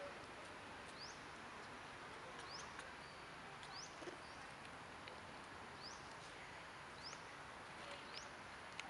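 A bird repeating a short, high, rising chirp about six times, every one to two seconds, over a faint steady outdoor hiss.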